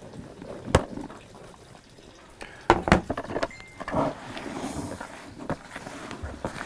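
Gozzer maggots tipped from a plastic tray into a plastic bucket of damp sawdust and stirred in by hand: irregular rustling and scraping with a few sharp knocks, the clearest about a second in and near three seconds.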